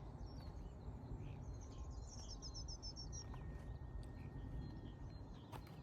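Quiet outdoor ambience: a small songbird gives a quick run of about ten high chirps around two seconds in, with a few scattered chirps elsewhere, over a low steady background rumble.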